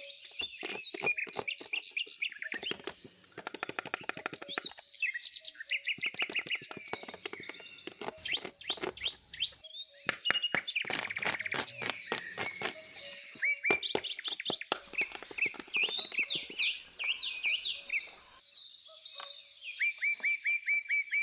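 Birds chirping and twittering in quick series of short notes, over many sharp clicks.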